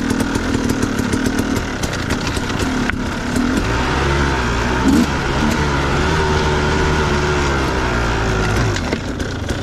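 Husqvarna enduro dirt bike engine running on a rough trail, its revs rising and falling, heard through steady wind rush on a helmet-mounted camera with many small knocks from the bumpy ground. The engine note stands out most from about four seconds in until near the end.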